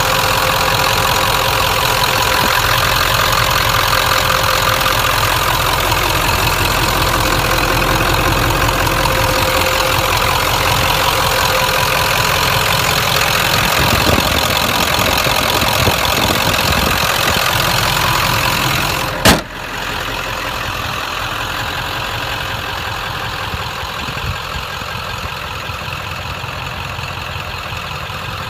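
Ford 7.3 L Power Stroke turbo-diesel V8 idling steadily. About two-thirds of the way through there is a single sharp bang, after which the engine sounds quieter.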